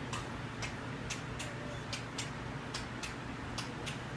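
Light hoof taps, the "trip, trap" of a billy goat puppet crossing the bridge: a run of sharp, short clicks, about three a second and unevenly spaced.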